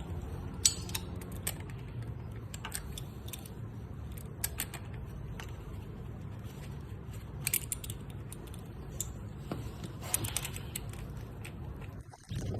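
Scattered light metallic clicks and taps, as of tools and small parts being handled during dirt bike carburettor work, over a steady low hum.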